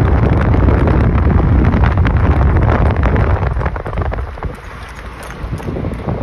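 Wind buffeting the microphone of a phone held out from a moving vehicle, a dense low rumble that eases for a moment about four seconds in and then picks up again.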